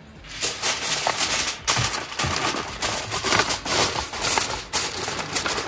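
Aluminium foil crinkling and crackling in irregular bursts as it is pressed and crimped over a disposable aluminium pan.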